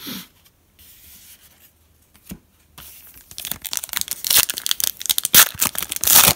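Foil trading-card pack wrapper being torn open by hand, starting about three seconds in: a dense crinkling and tearing that gets louder toward the end.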